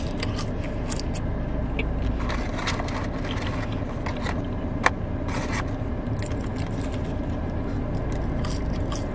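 French fries being chewed while the paper fries carton and bag are rustled and handled, giving scattered crackles and crinkles, with one sharp click about five seconds in. A steady low hum of the car cabin runs underneath.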